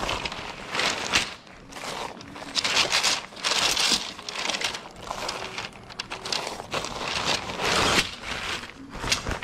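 Rustling and crinkling of a nylon shelter bag and the plastic wrap around a bundle of tent poles as they are pulled out and handled, coming in irregular surges, with a few sharp clicks.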